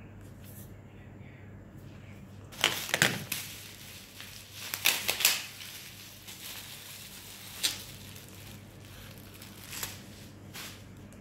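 Packaging being handled and crumpled: plastic wrapping crinkling in short, sharp bursts, two close clusters a few seconds in followed by two single crackles, over a low steady hum.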